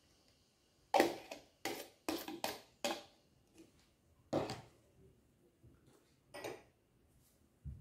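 Kitchen utensils being handled: a plastic measuring jug and a metal spoon knocking and clattering against the table and a plastic bowl. Short sharp knocks come in a quick cluster from about one to three seconds in, then single knocks around the middle and about two-thirds through.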